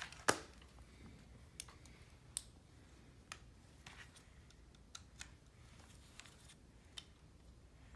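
Plastic LEGO pieces being handled: scattered light clicks and taps, the loudest about a third of a second in.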